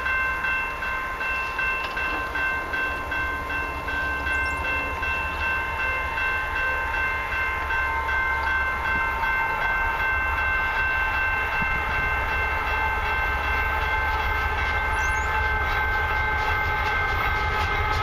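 A diesel locomotive's air horn held in a long, steady chord of several notes as an approaching Canadian Pacific freight train draws nearer. A low diesel rumble grows louder near the end.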